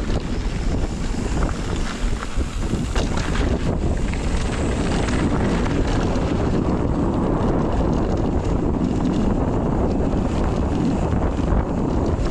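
Wind rushing over the microphone during a downhill mountain-bike ride, with short rattles and knocks from the bike on rough, rocky trail in the first few seconds.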